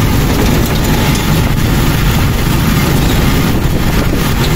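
Motorcycle tricycle moving along a rough dirt road, heard from inside the sidecar: a steady, loud, low rumble of engine and road noise.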